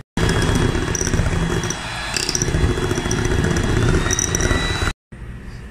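Electric hand mixer running steadily, its beaters whisking whipping cream in a bowl. Its whine rises slightly about four seconds in, and the sound stops abruptly near the end.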